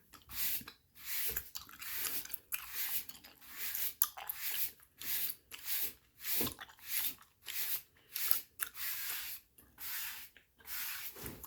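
Gum chewed close to the microphone, with short, wet, smacking chews at about two a second.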